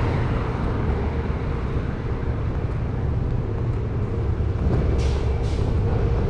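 Steady low outdoor rumble with a broad hiss, with two short hisses about five seconds in.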